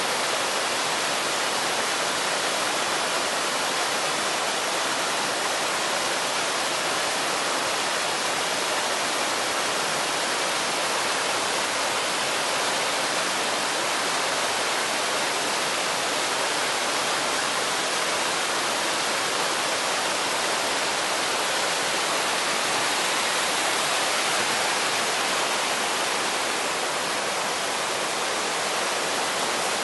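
Small waterfalls and cascades on a rocky mountain stream: a steady, unbroken rush of falling and tumbling water.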